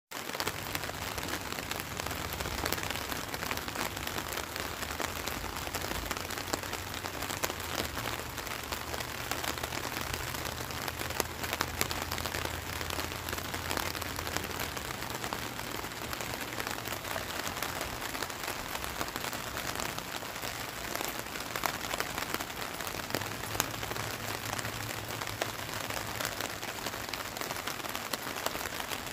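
Light rain falling steadily: an even hiss full of small drop ticks, with a faint low hum underneath for the first half and again a little before the end.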